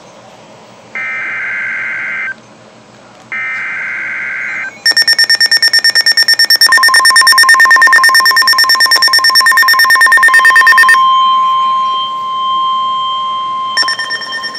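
NOAA Weather Radio emergency alert: two bursts of SAME digital header data, each a buzzy two-tone screech about a second and a half long with a short gap between them. Then a weather-alert receiver's alarm beeps rapidly, and the broadcast's steady warning alarm tone joins it and runs on after the beeping stops. The beeping returns near the end.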